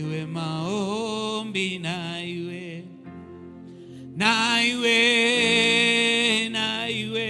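Slow worship music: a voice singing long, wavering phrases over held keyboard-style chords, rising to a loud sustained note about four seconds in.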